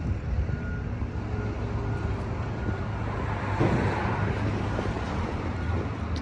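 Street traffic: a steady low rumble, with a vehicle passing close by and swelling loudest about three and a half to four and a half seconds in.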